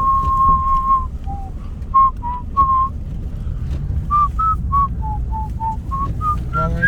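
A person whistling a tune: a string of clear notes, one long held note at the start, then shorter notes stepping up and down. Under it runs a steady low rumble.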